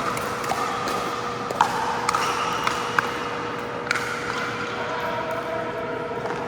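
Pickleball rally on an indoor court: sharp pops of paddles hitting the hollow plastic ball and the ball bouncing, about five in quick succession in the first half, over a steady hum.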